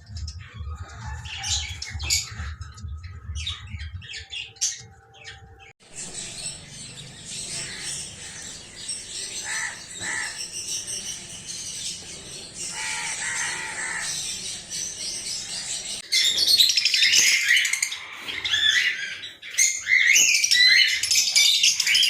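Small pet parrots chirping and squawking, several at once, with a low hum under the first few seconds. The chatter turns loud and dense about sixteen seconds in.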